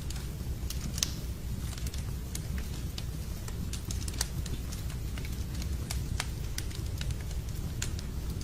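Wood logs burning in a fireplace: a steady low rumble of the flames with sharp, irregular crackles and pops, the loudest about a second in and just after four seconds.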